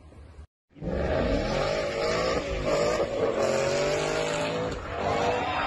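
Ford Mustang engine revving hard at full throttle, its pitch rising and falling as the car accelerates and slides out of control. It follows a brief dropout about half a second in.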